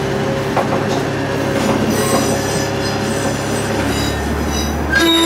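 KiHa 110 series diesel railcar running on a curving track: the steady rumble of the engine and wheels, with thin high-pitched wheel squeal on the curve. The low engine note shifts about four seconds in.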